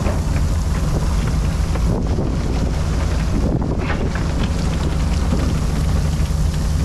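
Fishing boat's engine running with a steady drone, with wind buffeting the microphone.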